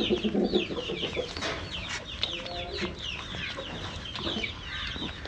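Chickens: many short, high, falling peeps from chicks, several a second without a break, with lower hen clucks here and there.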